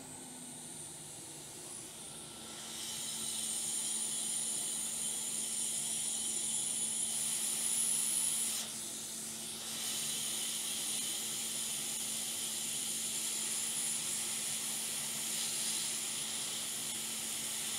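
Hot air rework station blowing a steady hiss of hot air while reflowing a chip onto a laptop motherboard. The hiss rises a couple of seconds in and dips briefly about halfway through, over a faint steady hum.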